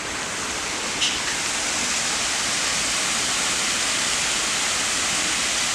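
Water rushing steadily through the gates of a canal dam, an even hiss of falling water.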